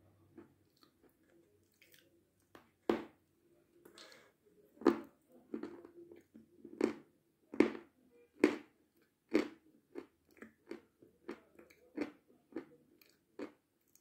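Close-miked chewing of Severskiy zefir, a dry, crunchy meringue-like sweet: a series of sharp crunches starting about three seconds in, roughly one a second at first, then quicker and lighter toward the end.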